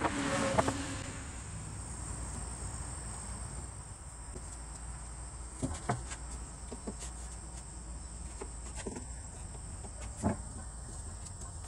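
Hand chisel scraping dried wood glue off a wooden frame joint: a rush of scraping in the first second, then a few sharp clicks about six and ten seconds in. A steady faint high-pitched whine and low hum run underneath.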